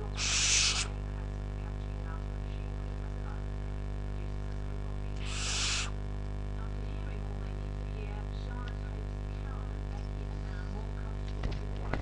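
Barn owl chick screeching twice, about five seconds apart: a harsh, hissing food-begging screech.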